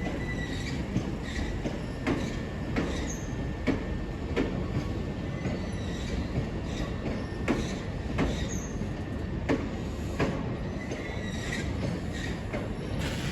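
Electric passenger train moving slowly at the platform: a steady low rumble with sharp wheel clicks over rail joints about once a second, and a faint thin squeal.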